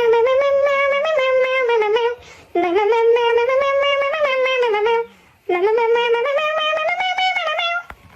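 A cat yowling: three long drawn-out calls, each rising, holding and falling away at the end, with short breaks between them.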